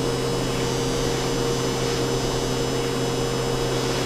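Metal lathe running steadily through a turning cut on a steel shaft, a constant machine hum with a hiss over it.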